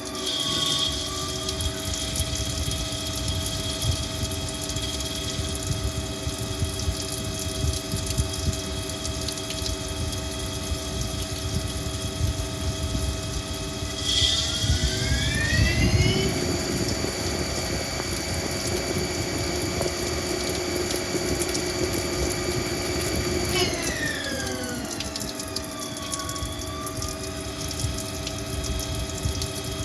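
Haas TL-1 CNC lathe running, its spindle drive giving a steady multi-tone whine over a constant rushing noise. The whine sweeps down in pitch just after the start, rises about halfway through as the spindle speeds up, holds, then sweeps down again as it slows.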